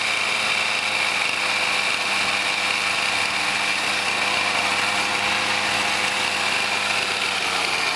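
Two-stroke chainsaw engine on a motorised skateboard idling steadily, with an even pitch.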